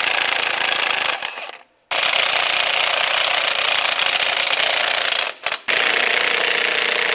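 Cordless impact wrench hammering on a 1-inch frame nut in three long bursts, with short pauses between them; the bolt is stubborn and does not break loose.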